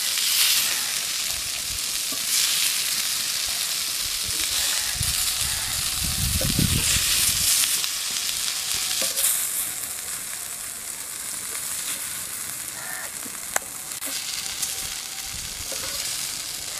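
Masala-coated catfish pieces sizzling steadily in hot oil on a black iron griddle over a wood fire.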